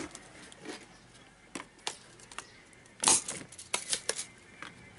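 Scattered clicks and light clatter of a circuit board and tools being handled on a workbench, with a louder clatter about three seconds in.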